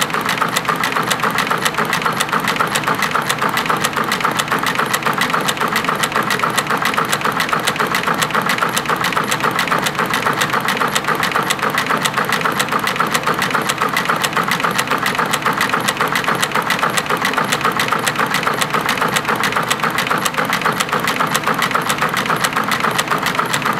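Roughly 90-year-old WWII-era shuttle loom running steadily while it weaves narrow olive-drab webbing, a loud, fast, even mechanical clatter.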